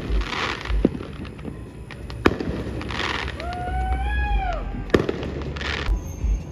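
Fireworks going off: a few sharp bangs, with short bursts of crackling hiss from the shells between them.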